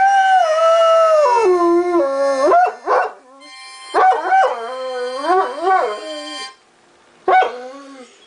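Great Dane howling along to a harmonica: a long howl that slides down in pitch over about two seconds, a wavering second howl, and a short last one near the end. Steady harmonica chords sound under the first two howls.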